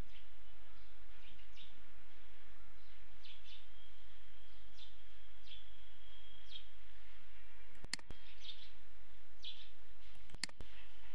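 Faint bird chirps, short calls and one held whistle, over a steady low electrical hum, with two short clicks near the end.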